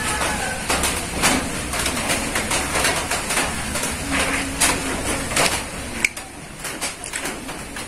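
A metal fork tapping and scraping in a ceramic bowl while santol fruit is eaten close by, with a sharp clink about six seconds in. A bird calls in the background.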